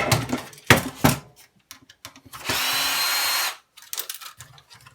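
Cordless drill-driver running for about a second, undoing a Phillips screw in a DVD player's casing, with a steady whine that stops abruptly. A few knocks of handling come just before it.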